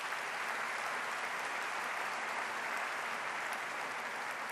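A large audience in a hall applauding, a dense, even clapping that holds steady.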